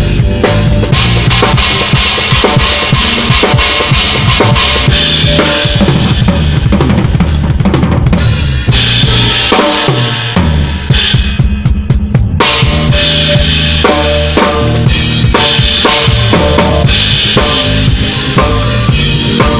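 Loud music with a drum-kit beat and a stepping bass line. About halfway through, the high end drops away for a couple of seconds, then the full mix comes back.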